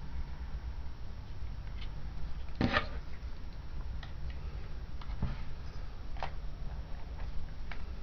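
Small clicks and taps of a camera's plastic parts being handled and worked at during disassembly, irregular, with one louder knock about three seconds in, over a low steady hum.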